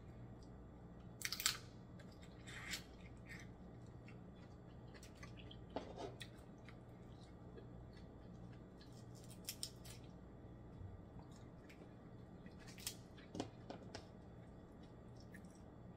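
Snow crab shell being picked and cracked apart by hand: scattered short crackles and clicks, a few clusters of them, the sharpest about a second and a half in, over a faint low hum.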